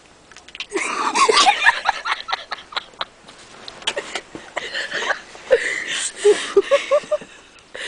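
People laughing and snickering in bursts: a loud fit of laughter about a second in, then short, choppy laughs a few seconds later.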